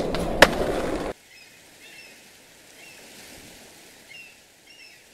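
Skateboard wheels rolling with a sharp pop about half a second in, cut off abruptly about a second in. Then a much quieter hiss with a few faint high chirps.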